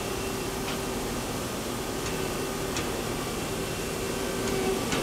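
Lower turret of a Nakamura-Tome WTS-150 CNC turning center traversing on its axis: a steady machine hum with a faint steady tone that stops near the end, and a few faint ticks.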